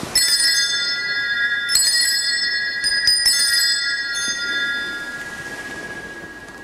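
Altar bells (Sanctus bells) rung three times about a second and a half apart, each ring a bright cluster of several pitches that rings on and slowly fades. It is the signal for the elevation of the host at the consecration of the Mass.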